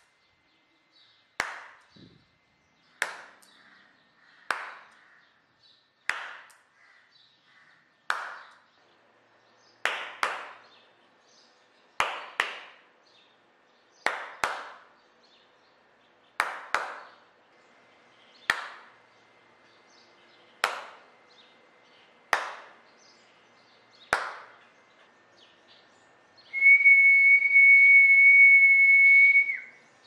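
Single hand claps, a dozen or so, about one every two seconds, each sharp with a short room echo, to trigger a clap-activated light switch. Near the end a person whistles one steady high note for about three seconds into the sound sensor.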